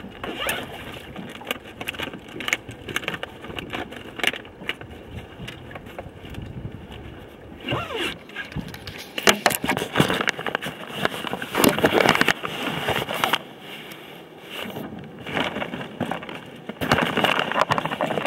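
Gear being handled in a mesh tackle bag close to the microphone while searching for hook removers: irregular scraping, rustling and clicking, with a zipper. The handling comes in bursts, loudest around the middle and again near the end.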